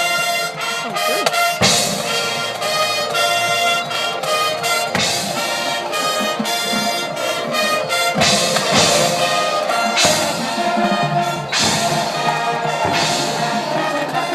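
High school marching band playing, led by brass (trumpets and trombones) holding chords, with loud accented entrances every couple of seconds.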